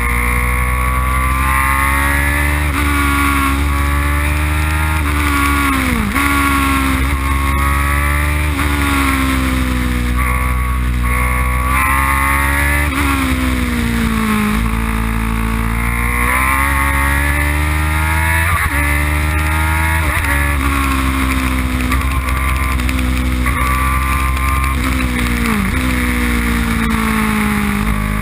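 Open-cockpit race car engine heard from on board, its pitch repeatedly climbing under acceleration and dropping sharply a few times, over a steady rush of wind and road noise.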